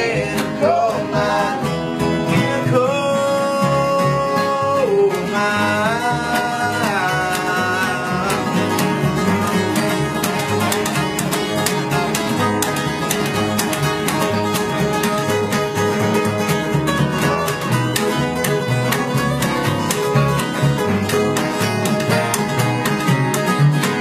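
Acoustic bluegrass-style band playing: strummed acoustic guitars over a plucked upright bass. Voices hold long, sliding notes for the first several seconds, then the band carries on instrumentally.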